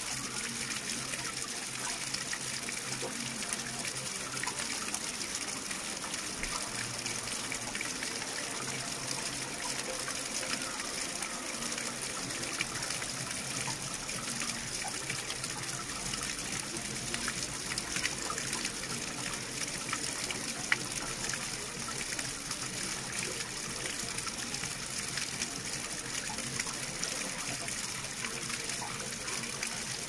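Steady rush of flowing water, with fine splashing throughout and one brief louder click a little past the middle.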